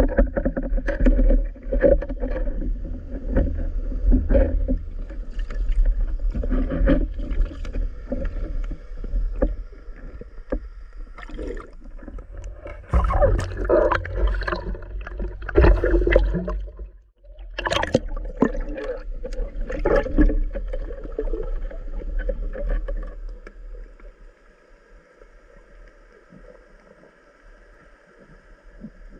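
Water splashing and sloshing with irregular knocks over a heavy low rumble, as someone moves through water while spearfishing. It quietens sharply about three-quarters of the way through.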